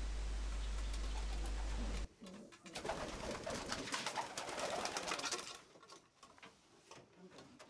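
Domestic pigeons cooing in a loft for about three seconds, with rustling and light clicks, beginning a couple of seconds in. Before that, a low steady hum runs and then cuts off suddenly.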